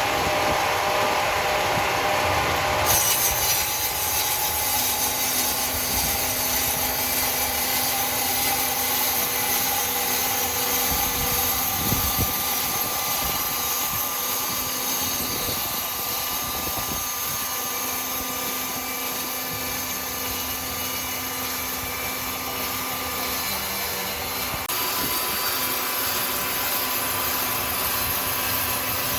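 A powered saw cutting steadily through wood, giving a continuous hissing rasp. The sound grows brighter and harsher about three seconds in.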